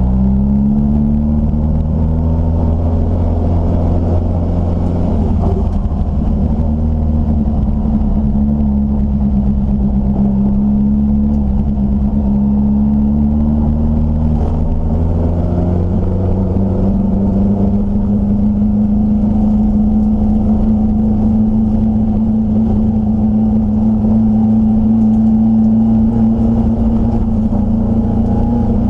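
Triumph Dolomite Sprint race car's slant-four engine running hard under load, heard from inside the cabin. The engine note rises in the first second, eases and climbs again around the middle with throttle and gear changes, and holds a steady high pitch through the second half.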